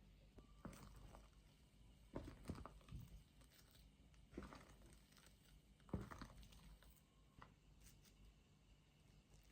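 Faint, scattered knocks and clicks, about half a dozen, over quiet room tone, the loudest about six seconds in.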